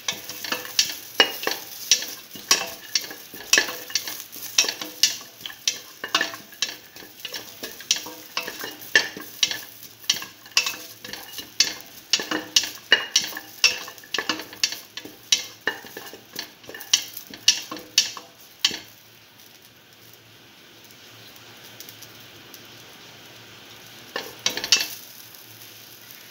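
Onion, ginger and garlic sizzling in oil in a stainless steel pressure cooker pot while a utensil stirs them, knocking and scraping against the pot about twice a second. The stirring stops about two-thirds of the way through, leaving a faint sizzle, with a couple more knocks near the end.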